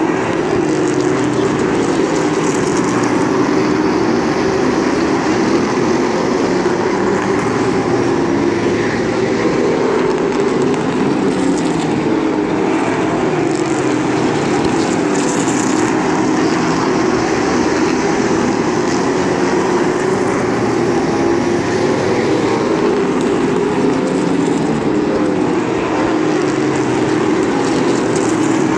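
A field of limited late model stock cars racing, their engines running hard together in a loud, steady drone whose pitch keeps rising and falling as the cars circle the track.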